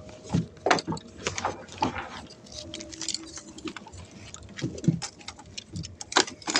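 Irregular light knocks and clicks, a few each second, like handling noise.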